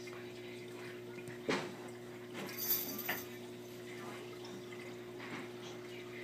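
Aquarium equipment humming steadily on a few fixed tones, with faint trickling water. A few sharp clicks sound about a second and a half in and again around three seconds.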